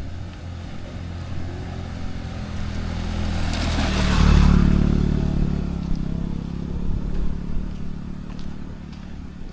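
A motor vehicle with its engine running drives past close by. It grows louder to a peak about four seconds in, then fades away.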